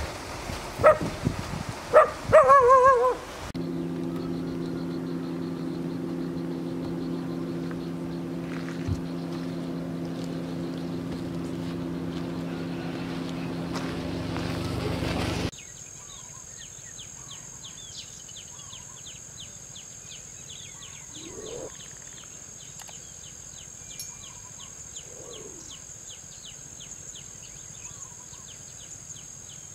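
A few loud, warbling bird calls, then a steady low droning hum that cuts off abruptly about fifteen seconds in. After it come a high, steady insect trill with fast, even ticking and scattered bird chirps.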